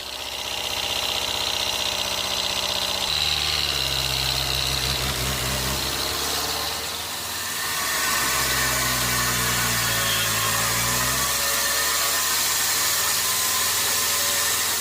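An engine running at a steady speed, shifting to a lower, louder tone about three seconds in. Around eight seconds in a steady high hiss joins it, and the engine's pitch dips and comes back up.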